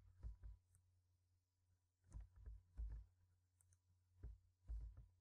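Near silence with three small groups of faint clicks from working a computer's mouse and keyboard, spaced about two seconds apart.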